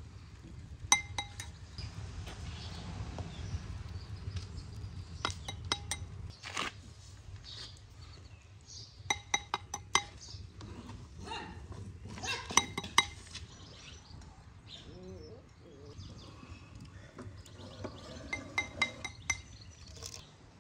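Kitchen utensils clinking against a ringing bowl or dish in short bursts of quick strikes, as when stirring or scraping batter.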